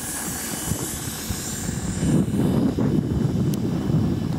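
Air hissing out of a 4x4's tyre as it is let down for driving on snow, fading after about two seconds, over a low rumble of wind on the microphone.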